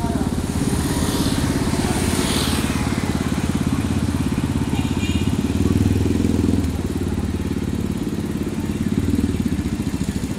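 A vehicle engine running steadily close by, a rapid low pulsing that holds without a break.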